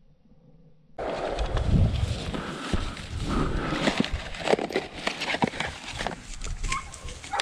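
Dry grass and weeds rustling and crackling underfoot and under hand as a hunter walks to a shot dove and picks it up, starting suddenly about a second in.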